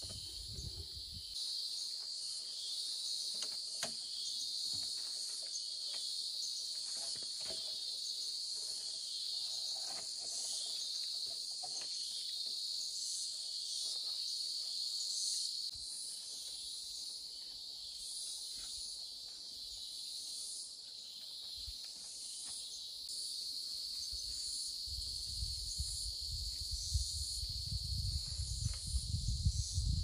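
Steady, high-pitched insect chorus with a slight pulsing, with scattered faint knocks and a low rumble near the end.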